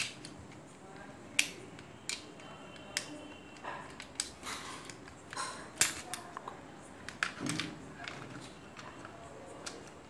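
Plastic parts of an opened toy air gun's mechanism clicking and clacking as they are worked by hand: a dozen or so sharp clicks at irregular intervals, the loudest at the very start and about six seconds in.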